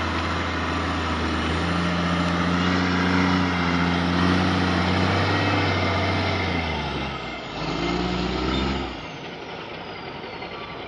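Heavy diesel logging truck engine running hard under load with a steady low drone; about seven seconds in its note shifts and surges briefly, then at about nine seconds it drops away sharply to a quieter rumble.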